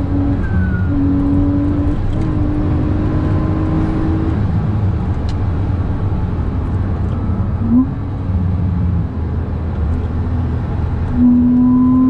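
Car engine running hard at speed, with heavy road and tyre rumble, heard from inside the cabin. The engine note holds steady, changes pitch several times, and rises briefly a little past the middle.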